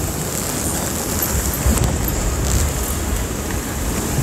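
Wind rumbling on the microphone over the steady wash of surf against a rocky sea shore.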